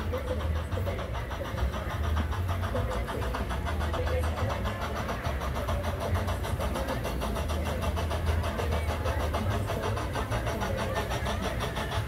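Engine of a 1961 Skooter locomotive running steadily with a regular low pulsing beat as it pulls a train.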